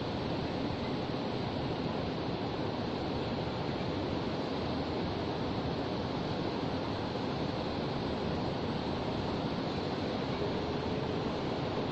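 Shallow river water rushing steadily, an even hiss with no breaks.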